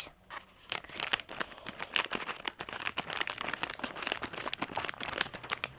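Plastic toy packaging crinkling and crackling as it is handled and cut open with scissors: a dense, irregular run of small crackles.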